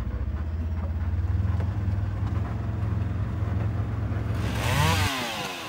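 Side-by-side utility vehicle's engine running steadily as it drives. Near the end a chainsaw comes in, revving up and back down, and the engine sound cuts off abruptly.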